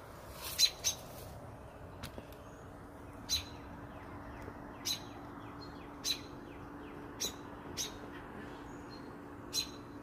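A bird giving short, sharp chirps, about nine of them spaced irregularly a second or so apart: the parent bird's alarm calls as its nest is approached.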